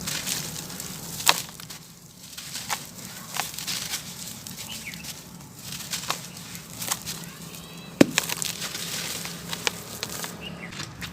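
Dry sand-cement chunks crumbling and crunching in irregular crackles. Two sharper cracks stand out, about a second in and the loudest about eight seconds in.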